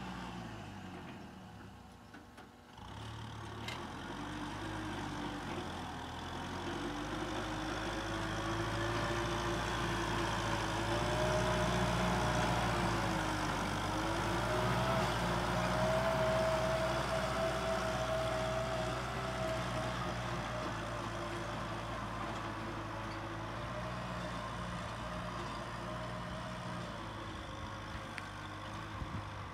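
Kubota M6040SU tractor's diesel engine working under load, pulling a plough. Its pitch wavers as the load changes. It drops off briefly about two seconds in, then picks up and runs steadily, a little louder.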